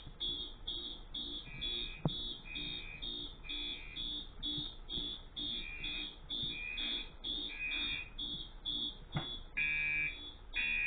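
Fire alarm horns sounding together during a system test, a Gentex horn strobe and an MT multitone horn strobe. One gives a regular, rapid pulsing horn tone at about two pulses a second, and a second tone comes and goes over it. Two sharp clicks, about two seconds in and near the end.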